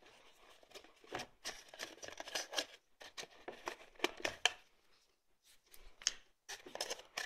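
Cardboard packaging being handled: a white card insert scraping and rubbing against the sides of a cardboard gift box as it is worked out, with short taps and clicks as it is set down on a wooden table. A brief pause about five seconds in.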